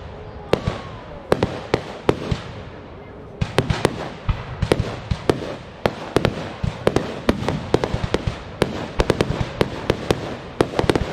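Aerial fireworks going off: sharp bangs and crackling reports, a few spaced apart at first, then a dense rapid barrage from about three and a half seconds in.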